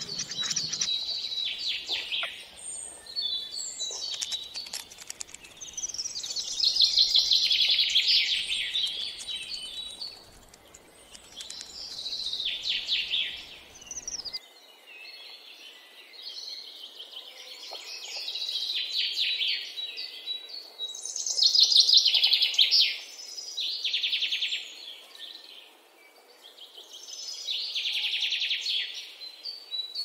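Young songbirds begging for food: bouts of rapid, high chirping, each a second or two long, coming every few seconds.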